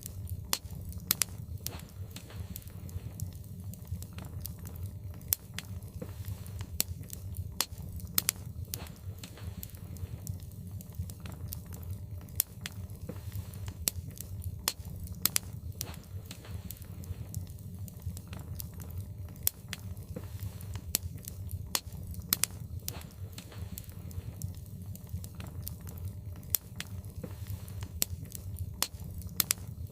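Logs burning in a fireplace, crackling with irregular sharp pops and snaps over a steady low rumble.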